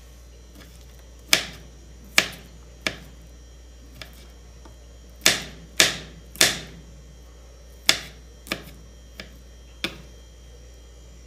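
Kitchen knife mincing garlic on a cutting board: about a dozen sharp, irregularly spaced chops with short pauses between them.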